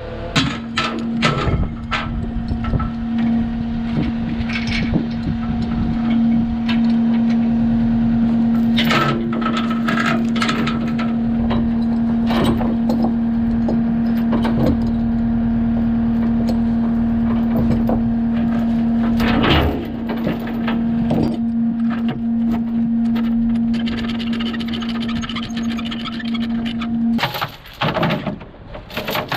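An engine running at a steady speed, with scattered knocks and clanks over it. The engine note stops near the end.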